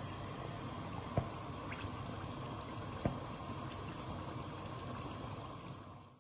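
Kac kac dough frying in hot oil in a pan: a steady sizzle, with two sharp clicks about a second and about three seconds in. The sizzle fades out at the very end.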